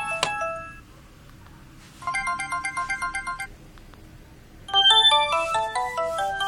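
Samsung SGH-D900 polyphonic ringtones played on a Nokia 6230i phone, previewed one after another. One melody stops just under a second in, after a click; a short snatch of another plays from about two seconds in; and a new, louder melody starts near five seconds.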